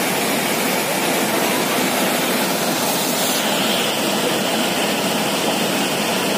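Fast river rapids rushing over rocks: a steady, loud wash of water noise.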